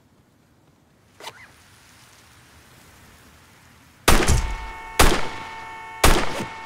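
Three revolver shots roughly a second apart, fired into a car. Right after the first shot the car horn starts and then sounds steadily, held down by the shot driver slumped on the steering wheel.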